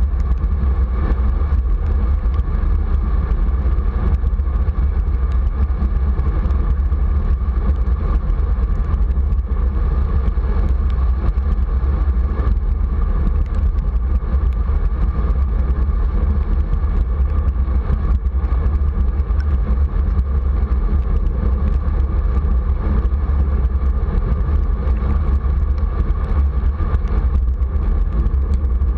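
Steady wind noise on a bicycle-mounted camera's microphone while riding, mixed with tyre hiss on a wet road. It is a low, even rushing that does not let up.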